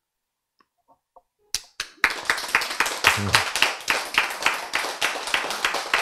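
Near silence for about a second and a half, then a few scattered claps, and from about two seconds in the audience breaks into steady applause: many hands clapping fast.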